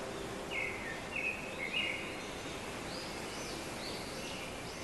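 Birds calling over a steady outdoor hiss. Three short, level chirps come in the first two seconds, then a run of higher chirps that rise and fall.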